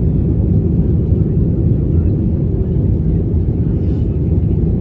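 Steady low rumble of an airliner's engines and airflow, heard from inside the passenger cabin.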